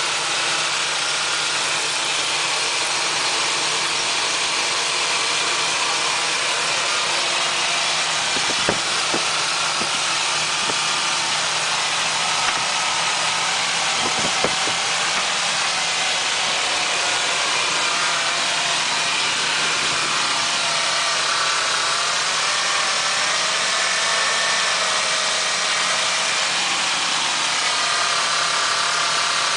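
1999 Ford Explorer's 4.0L OHV V6 idling steadily under a constant hiss, with a few light clicks. Carburetor cleaner is being sprayed around the upper intake plenum gasket to find a suspected vacuum leak behind bank 1 and bank 2 lean codes.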